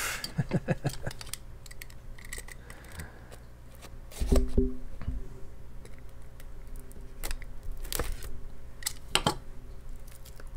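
Plastic disc-case packaging being handled: scattered clicks and crinkles, with one louder knock a little over four seconds in.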